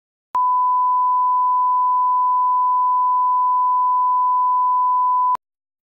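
Broadcast line-up test tone: one steady pure pitch, held for about five seconds and cut off abruptly, the reference tone laid with colour bars for setting audio levels.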